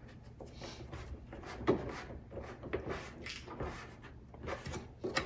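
Hands pressing and rubbing along an adhesive rubber bumper strip on the edge of a hard folding tonneau cover panel, a series of irregular rubbing and knocking sounds with a sharper knock about a second and a half in.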